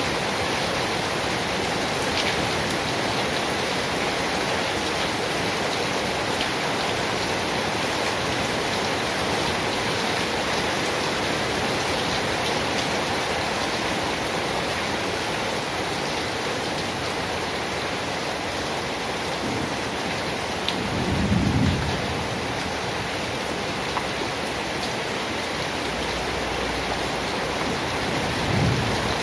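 Steady heavy rain falling, an even hiss. Two brief low rumbles rise through it, one about two-thirds of the way in and a shorter one near the end.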